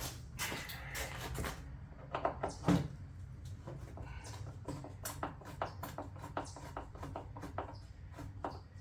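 Hand tools and small parts clicking and knocking during disassembly work on the ATV, over a steady low hum.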